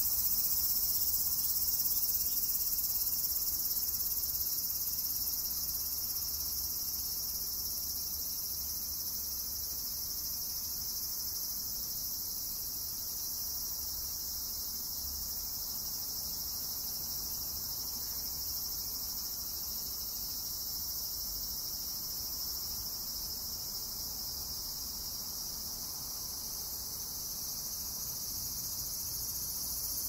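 Cicadas singing in a continuous, high-pitched chorus that holds steady without a break.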